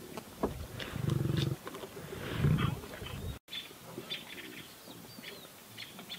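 Lion cubs growling while they chew on fresh meat. Two low growls come about one and two and a half seconds in, with small clicking sounds of feeding between them.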